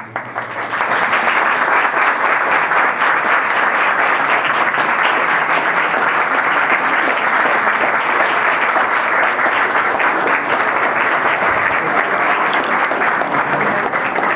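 Audience of a small gathering applauding, breaking out all at once and keeping up as steady, dense clapping.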